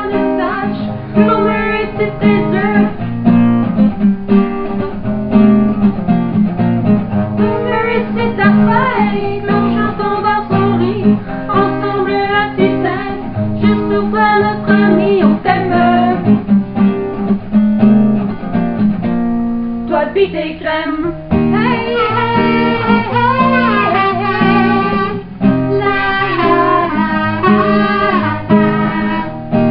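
Acoustic guitar and ukulele strummed while two women sing a song. About two-thirds of the way in, a buzzing kazoo takes up the melody.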